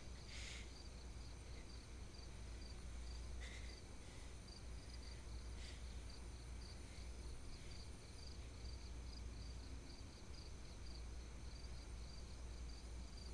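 Faint night ambience: a cricket chirping steadily, about three pulses a second, over a low steady hum, with a few faint short higher chirps.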